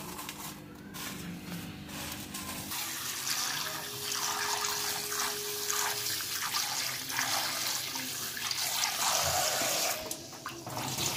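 Tap water running into a steel bowl of poha (flattened rice) in a kitchen sink while a hand swishes the grains to rinse them. The water starts about three seconds in, after softer handling sounds, and briefly drops near the end.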